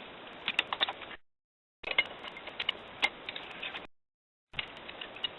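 Ratchet wrench clicking in short, irregular runs while loosening a fastener on the engine. The sound cuts to dead silence twice for about half a second.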